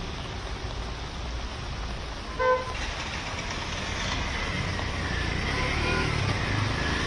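Road traffic on a wet city street: a steady rumble and hiss of vehicles, with a short vehicle horn toot about two and a half seconds in, the loudest sound.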